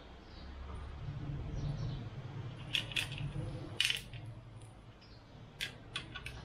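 Sharp metallic clinks of tools and bolts against metal engine parts while an oil pan is fitted: three scattered clinks in the middle, the loudest about 4 s in, then a quick run of four near the end.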